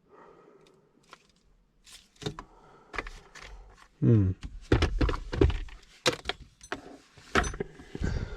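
A run of clicks, knocks and rattles from parts and tools being handled in a car, starting about two seconds in, with a short loud pitched glide about four seconds in.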